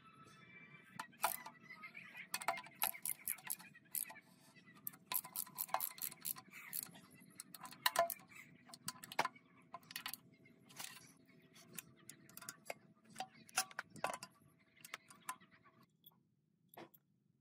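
Irregular metallic clicks and clinks of a ratchet wrench and bolts as the oil pan is bolted onto an engine block. The clicks thin out near the end.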